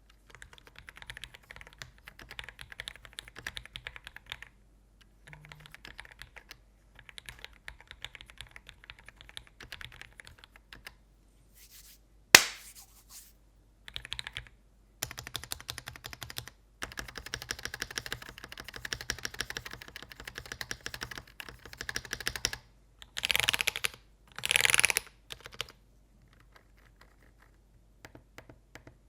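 Typing on a Dark Project x Akko 5075 mechanical keyboard: runs of quick key clacks with short pauses between them. About twelve seconds in there is one sharp, loud stroke, and near the end two short, dense, louder bursts of keystrokes.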